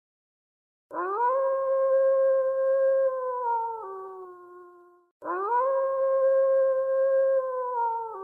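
A canine howl, heard twice as identical copies of one looped recording. Each howl glides up quickly, holds a steady pitch for a few seconds, then drops to a lower held pitch and fades.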